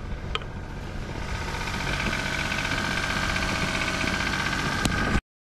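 Car engine idling steadily. The sound cuts off abruptly near the end.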